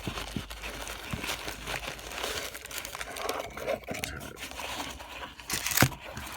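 Packaging of a box of baseball cards being ripped open and crinkled by hand: a continuous rustle of small crackles, with one sharper crack near the end.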